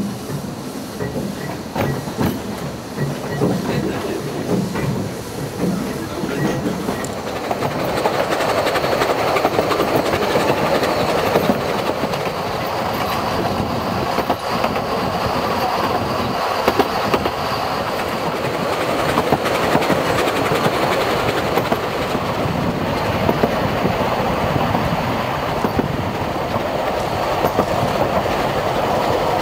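Steam-hauled narrow-gauge (1 ft 11¾ in) passenger train running, heard from a carriage: wheels clattering over the rail joints with a steady rumble. It is quieter and more uneven at first, then louder and steadier from about seven seconds in.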